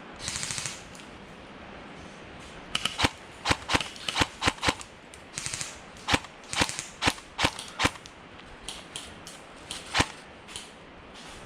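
Airsoft guns firing single shots: a run of sharp cracks, irregularly spaced, thickest in the middle, with one louder shot later and a few fainter ones.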